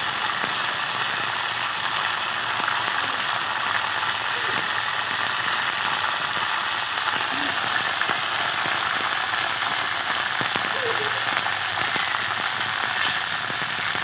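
Hot ghee in an iron kadhai sizzling steadily as spoonfuls of pakora batter fry in it.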